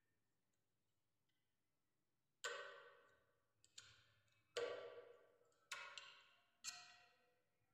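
Five sharp metallic strikes roughly a second apart, starting about two and a half seconds in, each ringing briefly and fading.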